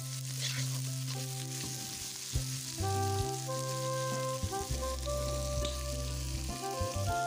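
Sliced onions, garlic and green chilies sizzling in hot oil in a blackened karahi, stirred and turned with a metal spatula. Soft background music with held notes and a low bass line plays over the frying.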